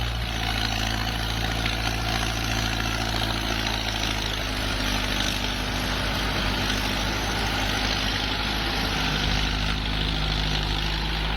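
Heavy diesel engine running steadily, its pitch shifting slightly a few times.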